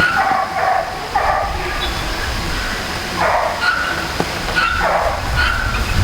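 Short animal calls repeated every second or so, over a steady low rumble, with a short higher note recurring in the background.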